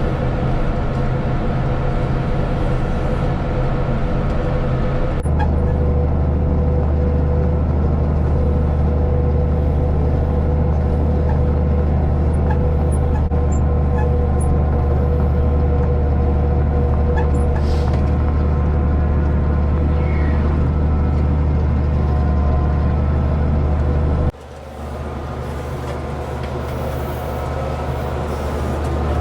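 White 2-135 tractor's diesel engine running steadily under load while pulling a New Holland BR770A round baler. The engine note deepens about five seconds in. The level drops abruptly about four-fifths of the way through, then builds back up.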